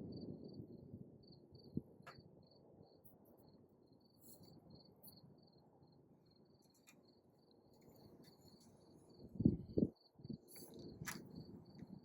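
A high, even chirp repeating about two to three times a second, an insect calling, over faint low background noise. Near the end a brief low rumble stands out, with a few light clicks.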